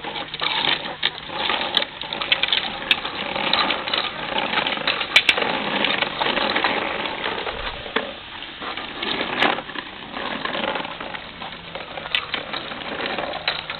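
Hard plastic tricycle wheels rolling over an asphalt driveway: a continuous rattling clatter with scattered sharp clicks and knocks.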